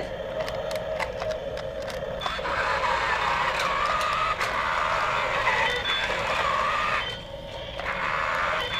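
Small electric motors and plastic gearboxes of toy RC construction vehicles whirring steadily as they drive, dropping off briefly about seven seconds in.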